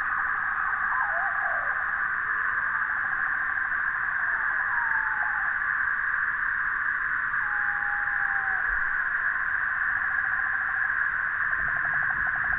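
Faint, thin calls of small wild birds, short gliding notes and quick trills, heard over a steady high-pitched hiss that runs throughout.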